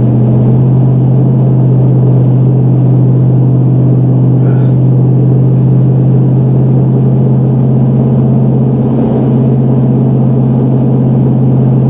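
Steady low drone of a car running, even in level throughout.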